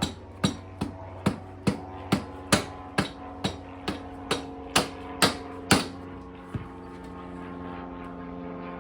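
Hammer blows on metal, about two a second, a dozen or more evenly spaced strikes, then one last lighter blow after a short pause. This is the kind of hammering used to drive the rear axle out of a motorcycle wheel once its nut is off.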